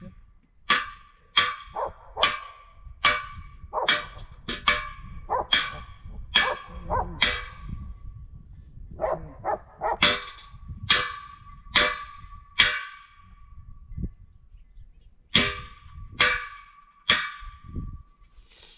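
Hammer blows on metal while the flagpole is fastened tight in its wooden post. Each blow is a sharp clang with a short ringing tone, coming about one and a half a second in runs, with pauses about eight seconds in and again around thirteen seconds in.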